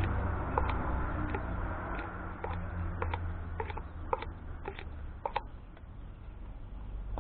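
Scissors snipping fiberglass chopped strand mat into a plastic cup, cutting it up into short fibres: a run of about ten short snips, roughly two a second, that stop a little after halfway.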